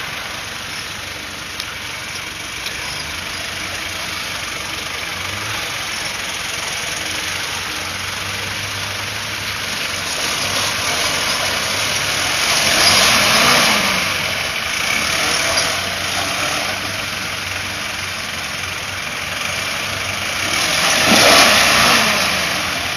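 Toyota Land Cruiser BJ40's four-cylinder diesel engine running at low speed as it pulls through deep mud, revving up twice under load, about halfway through and again near the end.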